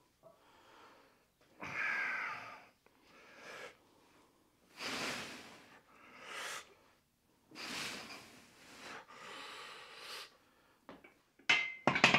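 A man breathing hard from exertion: a string of loud, breathy exhales and inhales, roughly one every second or so. A few sharp clicks come near the end.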